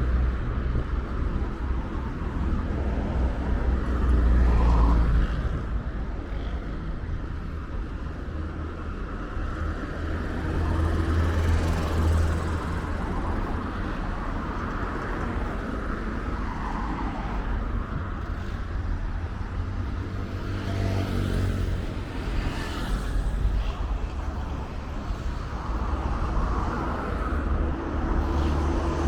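Road traffic: motor vehicles running and passing, a steady low rumble with an engine note standing out about two-thirds of the way through.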